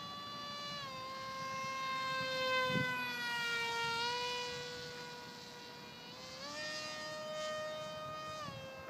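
Tuffwing 32 RC flying wing's 2826-6 2200 kV brushless motor and 6x5 propeller whining overhead, its pitch moving with the throttle. The pitch drops slightly about a second in, sinks lowest around four seconds, steps up about six and a half seconds in, then drops again near the end.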